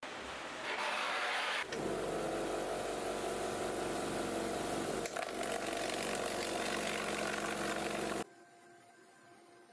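Vibratory tumbler running with a loud, steady, even hum, its bowl full of black polishing media for cleaning small rusty bolts and nuts. A short hiss comes first, and the hum cuts off abruptly about eight seconds in.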